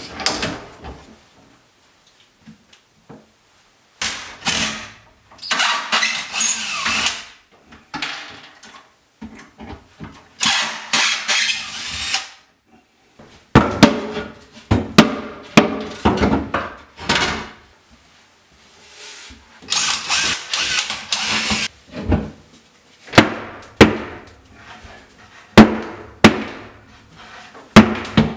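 DeWalt cordless drill-driver run in short bursts, taking the old closet shelving apart, with sharp knocks and clatter of boards and hardware between the bursts.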